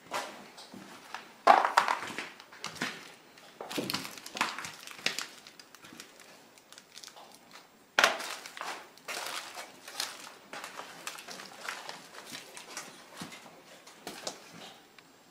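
Footsteps crunching and scraping over debris on the floor, an irregular run of sharp crunches and knocks, the loudest about a second and a half in and again about eight seconds in.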